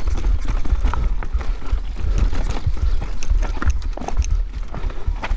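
Mountain bike clattering and rattling over rocky, chunky trail: many irregular sharp knocks from the wheels and frame striking rocks, over a constant heavy low rumble.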